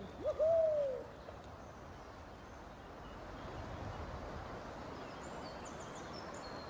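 Steady rush of a shallow, rippling river. About the first second it is topped by a loud hooting call that slides down in pitch.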